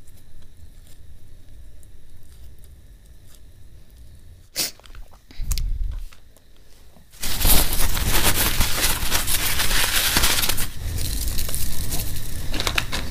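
Fingers crushing dried red chillies on a steel plate: a dense, loud crackling and crunching starts about seven seconds in and runs on. Before it there are only soft rustles, a few clicks and a short thud as a boiled potato is peeled by hand and set down.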